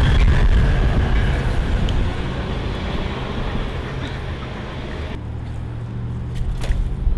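Low rumble of wind buffeting the microphone on the move, over street traffic, with a car passing close by. The higher hiss drops away abruptly about five seconds in.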